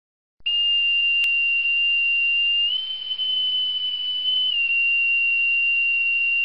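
Boatswain's call (bosun's pipe) blown as one long shrill note over a faint hiss, stepping up slightly in pitch for a couple of seconds midway, dropping back to the first note, and ending with a short upward flick.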